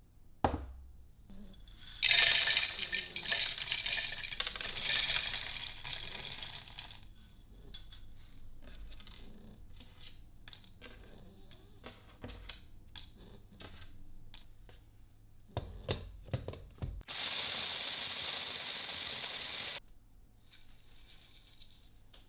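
Dry toasted-oat cereal pieces rattling and clattering into a clear plastic mini-chopper bowl for about five seconds, then scattered clicks as single pieces are handled. Near the end a small electric chopper runs steadily for about three seconds and stops abruptly, grinding the cereal to a powder.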